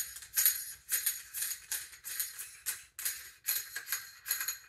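Metallic jingling and clinking, about two or three strokes a second, as an M48 T-ring is turned by hand on the back of a telescope's field flattener. The ring's inner threaded piece spins freely with no resistance because a small set screw is loose.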